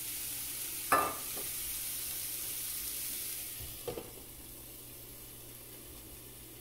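Banana flower and onion stir-fry sizzling in a pan, with a sharp metal clank about a second in. Just before four seconds a glass lid is set on the pan with a clink, and the sizzle turns quieter and muffled.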